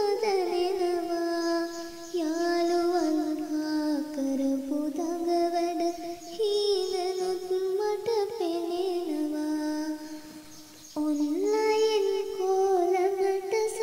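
A child singing a Sinhala song, holding long sustained notes in a melodic line, with a short break about ten seconds in.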